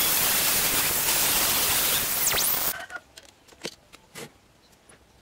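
Angle grinder with a cut-off disc, mounted on a homemade sliding guide, cutting through steel plate with a loud, steady grinding hiss. It cuts off suddenly a little under three seconds in, leaving a few faint clicks and taps.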